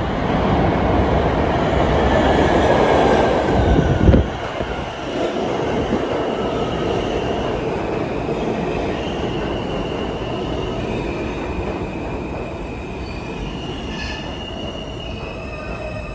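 R160 subway train entering the station and braking. A rumble builds as it arrives, with a sudden thump about four seconds in. Then steady wheel noise with a whine that slowly falls in pitch and high squealing tones as it slows.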